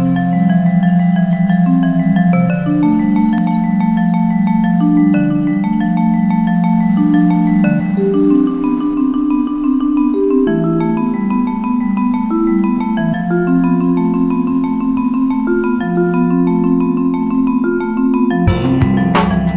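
Background music: a melody of short notes stepping over held low notes, with a drum beat coming in near the end.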